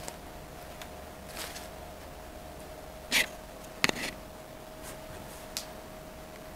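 Craft materials being handled on a wooden table: a few soft rustles and ticks, with two sharp clicks or knocks about three and four seconds in, over a steady faint high hum.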